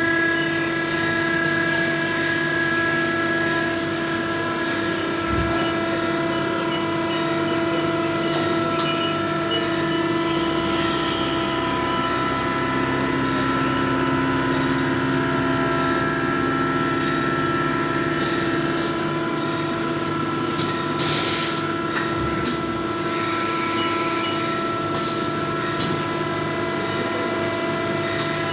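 CNC machine running with a steady whine of several held tones, joined by short hissing noises about three quarters of the way through.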